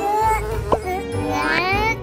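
Playful cartoon background music with a steady bass line, overlaid with squeaky, high-pitched cartoon-character vocal sounds and a rising swoop sound effect in the second half.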